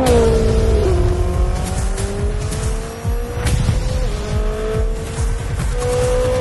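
Koenigsegg Regera's twin-turbo V8 under hard acceleration, its pitch climbing slowly with a couple of sudden drops, over background music.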